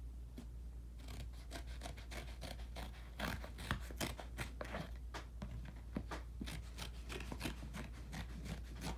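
Scissors cutting into a brown cardboard mailing package: an irregular run of snips, scrapes and rustling that starts about a second in.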